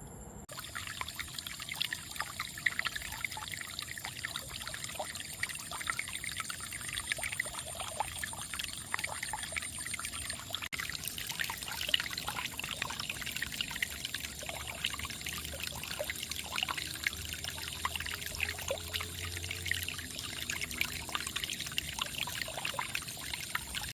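Water trickling and pouring steadily, a dense crackle of small splashes, with a thin high steady tone above it.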